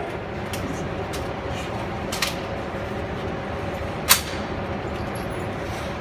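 Steady background din at a shooting range, broken by a few sharp clicks; the loudest comes about four seconds in.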